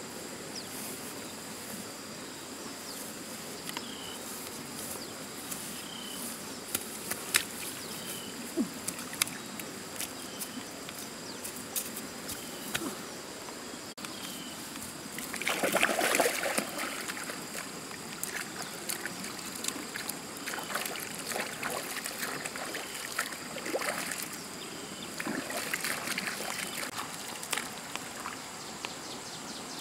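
Shallow stream water trickling with a steady high insect drone, and water sloshing and splashing as hands work in it, loudest about halfway through and again near the end.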